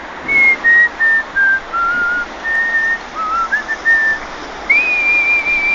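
A man whistling a melody: a run of short, clear notes stepping up and down, then a long high note, slid up into about three-quarters of the way through and held.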